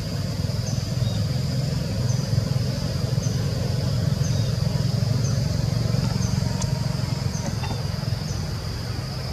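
Outdoor forest ambience: a steady low rumble under a steady high drone and a short high chirp repeated about once a second.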